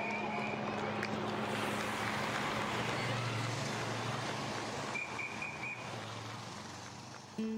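Race vehicles passing along the course, a motorbike and a team car with their engines humming, under a steady wash of outdoor noise. Ukulele music cuts in right at the end.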